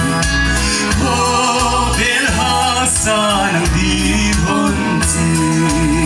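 Man singing a song into a microphone, his held notes wavering with vibrato, over an amplified band accompaniment of electric guitars and bass with a steady beat.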